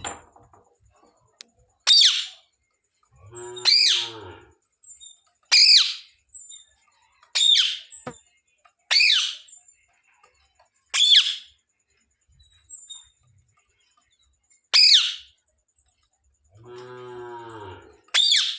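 A parrot calling: about eight sharp, high-pitched squawks, mostly every second or two, with a longer gap near the middle. Around four seconds in and again near the end comes a longer, lower, pitched vocal sound.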